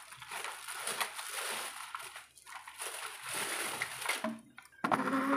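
Water splashing and sloshing in a tub of soapy water as plastic toy vehicles are bathed in it, with a few light clicks; it thins out about three seconds in.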